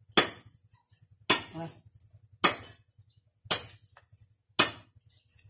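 Sharp clinking knocks about once a second, five in all, as a grass-flower broom head is bound and pulled tight by hand.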